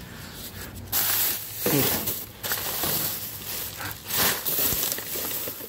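Plastic garbage bags crinkling and rustling in irregular bursts as they are handled and shifted in a dumpster.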